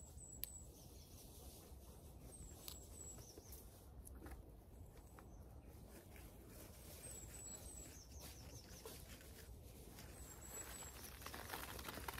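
Quiet outdoor garden air with a small bird singing a short, high chirping phrase that repeats about four times, a few seconds apart. Near the end there is soft rustling and crumbling as a clump of snowdrops is pulled apart by hand.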